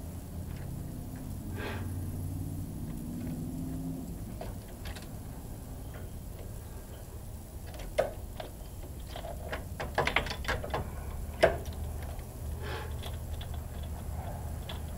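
Light metallic clicks and taps of diesel fuel injection lines and their fittings being handled, with a cluster of sharper clinks about eight to eleven seconds in, over a low steady hum.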